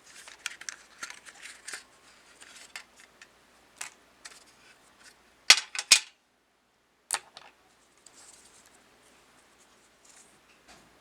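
Small magnetic pieces of a fidget pen's desk toy clicking and snapping together as they are handled: scattered light clicks, then three sharp snaps about five and a half seconds in and another a little after seven seconds.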